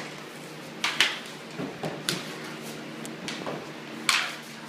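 Street-hockey sticks and ball clacking on a garage floor: a handful of sharp, separate knocks, the loudest about four seconds in.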